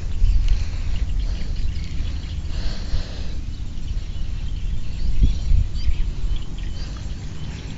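Outdoor field ambience: a steady low wind rumble on the microphone with handling and rustling as the camera is swept through rice plants, and faint bird chirps scattered through it.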